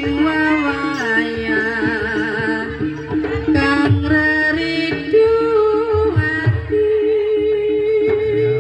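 Music accompanying a Javanese kucingan folk dance: a singer holds long wavering notes over a repeating melodic line and low drum beats.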